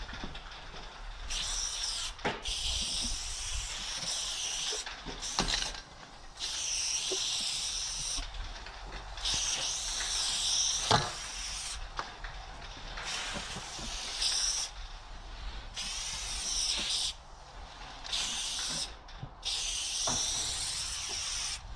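Aerosol spray paint can hissing in about ten separate bursts, each from half a second to two seconds long with short pauses between, as paint is sprayed onto a brick wall. A few sharp clicks fall between the sprays.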